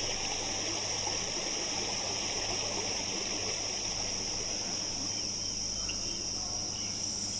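Steady rush of flowing stream water, with a constant high-pitched insect chorus over it.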